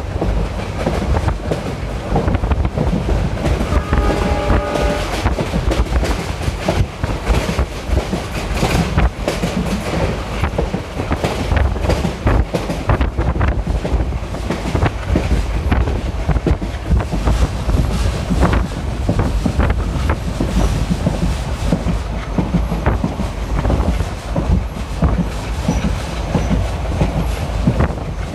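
Passenger train running, heard from on board: a steady rumble with the clickety-clack of the wheels over rail joints. The train's horn sounds briefly, for about a second, around four seconds in.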